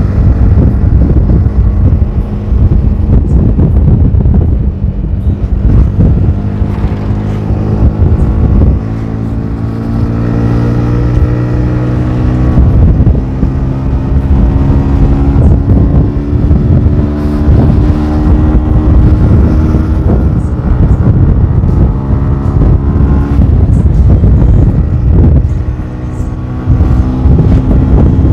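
Motorcycle engine running while riding at road speed, with wind buffeting the microphone. The engine note climbs gradually through the middle and drops back briefly near the end.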